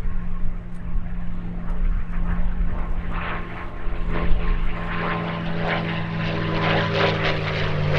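A P-51D Mustang's Merlin V12 engine and propeller drone steadily in a display fly-by, growing gradually louder and rougher as the aircraft comes closer.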